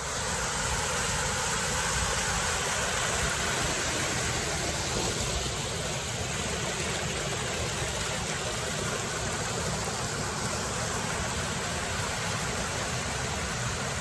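Tanque Verde Creek's rapids rushing over and between boulders: a steady, even sound of white water.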